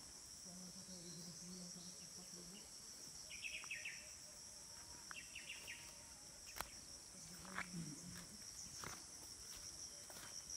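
Steady high-pitched trill of crickets and other insects, with two short bursts of rapid bird chirping about three and five seconds in.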